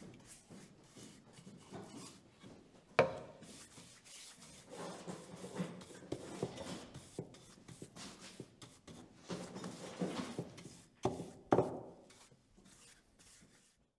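A flat paintbrush scrubbing paint onto sawn wooden ornaments in repeated short strokes. There is a sharp knock about three seconds in and two more close together near the end; then the sound cuts to silence.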